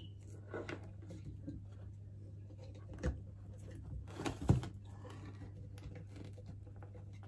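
Handling noises from a heavy Himalayan salt-lamp stone and its power cord: a few scattered light knocks, the loudest about four and a half seconds in, with some rustling, over a steady low hum.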